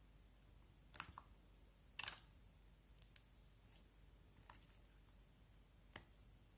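Slime being handled, giving a few short, faint sticky clicks and pops spaced out over several seconds, the loudest about one and two seconds in.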